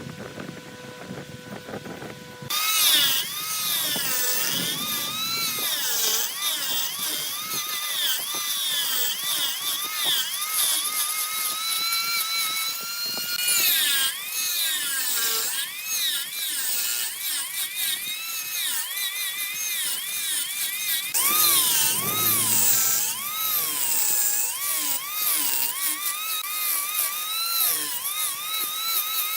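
Wood lathe cutting: a turning tool on the spinning workpiece makes a high, wavering whine over hiss. Before the cut starts, about two and a half seconds in, there is only a steady motor hum.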